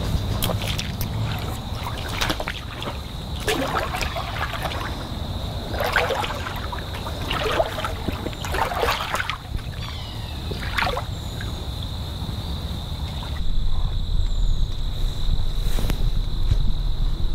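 Footsteps in boots wading through shallow swamp water: a slow run of sloshing splashes, one per step. In the last few seconds the splashing stops and wind rumble on the microphone takes over.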